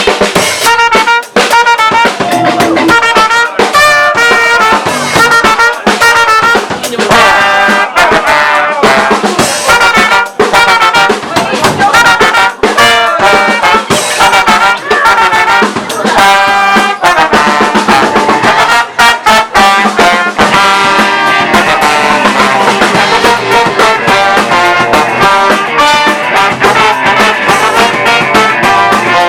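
A band playing live music, the opening of an acoustic song arrangement, with a brass-like melody line moving over a steady drum beat.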